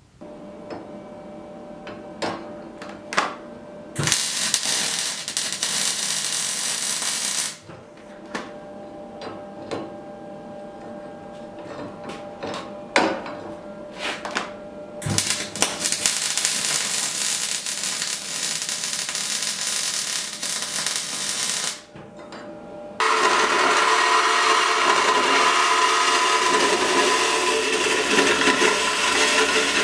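Metal shop work: clicks and knocks of steel being handled, broken twice by a steady hiss of a gas torch, about four seconds in for some three seconds and again from about fifteen seconds for some seven. About twenty-three seconds in, a power saw starts running steadily, cutting through a square steel bar.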